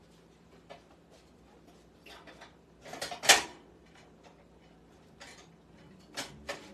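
Scattered household knocks and clatters in a small room, a handful of sharp short impacts with the loudest about three seconds in.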